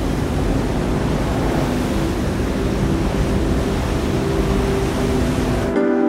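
Steady rush of wind and sea water with a low rumble, as heard from a boat underway on open water. Just before the end it cuts off abruptly and music with chiming bell notes begins.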